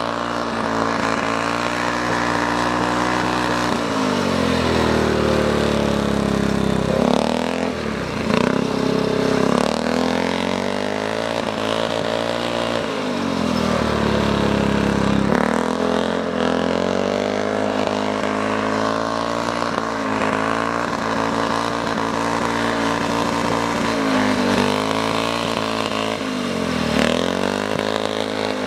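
Speedway motorcycle engine running hard on an ice track. Three times, about five seconds in, around the middle and near the end, the revs dip as the throttle eases off and then climb back as it opens up again.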